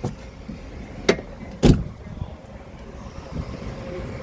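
Two knocks: a sharp one about a second in and a heavier, deeper thump about half a second later, over a low steady rumble.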